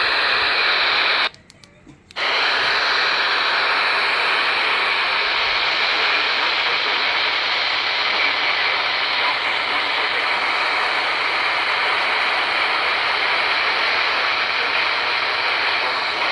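Steady radio static hiss from a receiver tuned to NOAA Weather Radio with no programme on the air. It cuts out briefly about a second in, then resumes.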